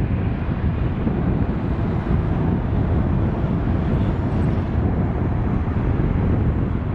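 Twin-engine jet airliner rolling out on the runway just after landing, its engines giving a loud, steady rumble.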